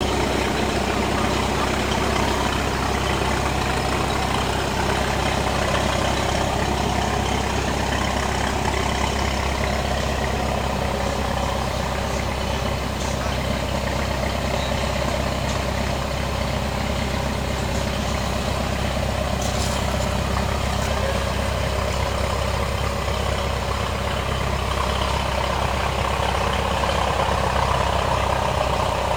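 Vintage Allis-Chalmers tractor engine idling steadily.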